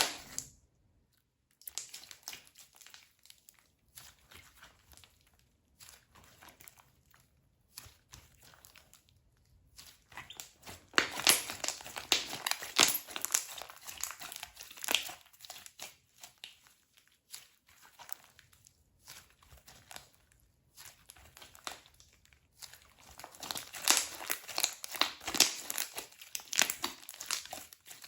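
Slime being squished, stretched and poked by hand, giving sticky crackling clicks. The clicks are sparse and soft for long stretches and turn dense and loud about eleven seconds in and again about twenty-three seconds in.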